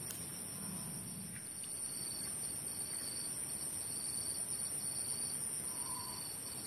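Steady high-pitched insect chorus, a continuous shrill drone, with a few faint short chirps.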